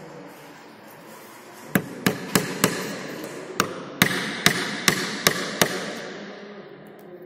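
Hand hammer striking, likely driving small nails into plywood: about ten sharp strikes, four quick ones, a short pause, then six more, each with a brief ring.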